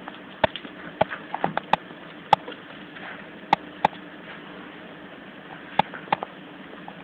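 A Jack Russell terrier chewing and mouthing a toy: about ten short, sharp clicks and snaps, scattered irregularly.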